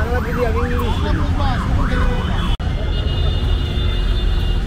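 A vehicle siren yelping, its pitch sweeping rapidly up and down about three times a second, over a steady low rumble of street traffic. The siren stops abruptly a little past halfway, leaving the traffic rumble.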